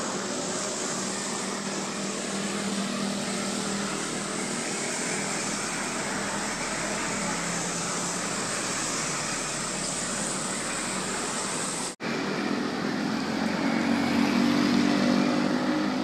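Road traffic on a rain-wet road: a steady hiss of tyres on wet asphalt as buses and cars go by. The sound drops out briefly about 12 s in, then vehicle engines grow louder as a motorcycle and a bus approach.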